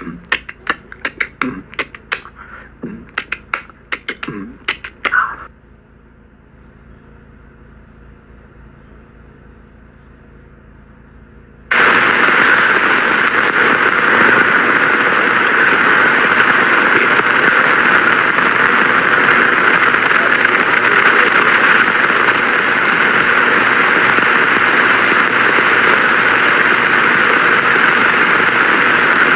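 A quick string of sharp mouth clicks and pops for about five seconds. Then, after a quiet gap, a loud steady rushing noise begins suddenly and holds to the end.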